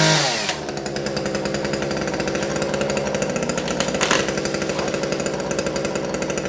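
Two-stroke chainsaw dropping from a rev in the first half second to a steady low-speed run with a rhythmic pulse. There is a brief burst of higher noise about four seconds in.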